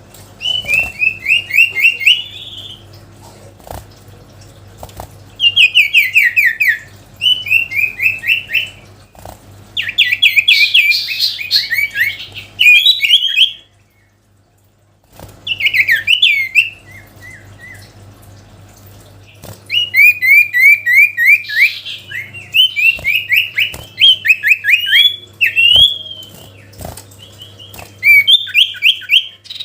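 Common iora (cipow) singing its loud 'sirtu' song: repeated phrases of rapid, downward-slurred chattering notes, each phrase lasting one to two seconds with short pauses between, and a brief silence about halfway through.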